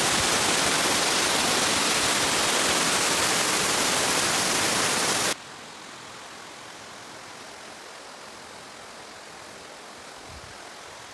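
Steady rushing roar of a waterfall, loud for about five seconds, then cutting suddenly to a quieter, similar rush.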